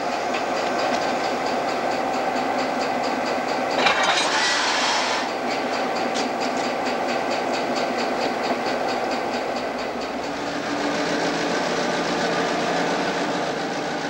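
EMD GP7 diesel locomotives running at low speed, a steady engine drone with a regular beat. About four seconds in, a sharp knock is followed by a short burst of air hiss, and near ten seconds the sound shifts lower as locomotives roll past.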